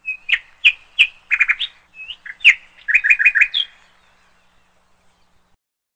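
Bird chirping: a string of sharp, high chirps, some in quick runs of four or five. They stop about four seconds in.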